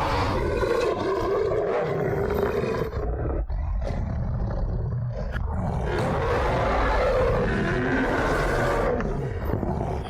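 Movie werewolf (lycan) creature roaring: long, rough, sustained roars, broken by a short pause about three seconds in.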